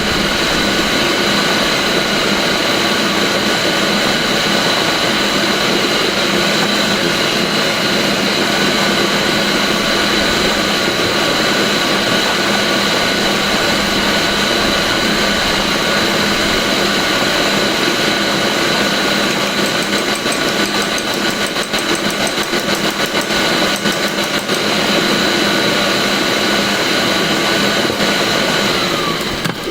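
Electric blender motor running steadily at high speed, pureeing a thick dip. Its pitch falls away as it is switched off at the very end.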